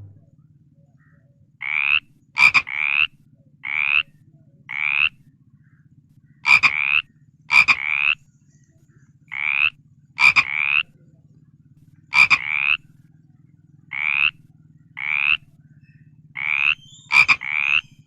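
A frog croaking over and over, short calls about half a second long that each rise in pitch, roughly one a second, some opening with a sharp click. A faint steady low hum lies underneath.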